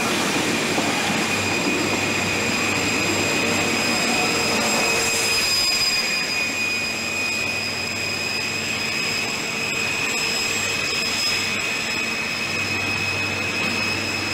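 InterCity 125 high-speed train pulling out, its coaches rolling past and then its Class 43 power car going by. The Paxman Valenta diesel engine gives a steady high whistle over the rumble.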